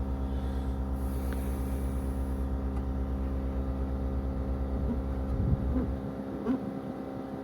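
An engine running steadily, a low pulsing rumble whose deepest part drops away about six seconds in, with a couple of small knocks near the end.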